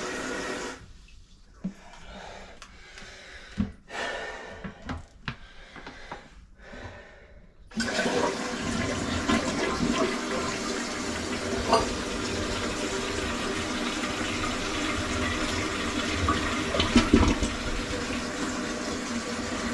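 Water running that stops under a second in, a few knocks, then about eight seconds in a toilet is flushed and water rushes steadily through the bowl and tank. The bowl does not refill all the way, which the plumber puts down to strong suction from the newly installed flange.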